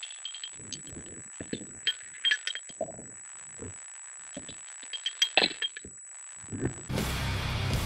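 Underwater sound: scattered sharp clicks and light metallic pings with occasional low thumps over a steady high whine. Electric-guitar rock music comes in near the end.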